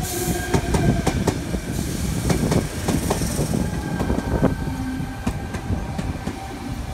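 Sydney Trains Tangara (T set) electric train rolling along the platform with a low rumble and irregular clacks as its wheels pass over the rail joints, plus a thin steady whine.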